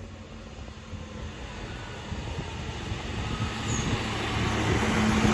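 Alstom Coradia Lint 41 diesel multiple unit approaching along the platform, its engine hum and rail rumble growing steadily louder as it comes close.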